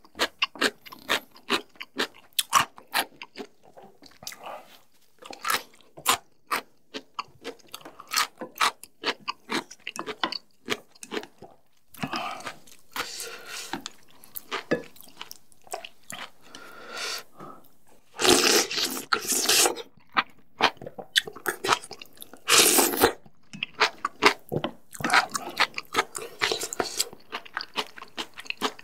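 Close-miked mukbang eating sounds: chewing and crunching of food in quick, wet clicks through the first half. Longer, louder noisy stretches of eating and handling the noodle bowl come in the second half.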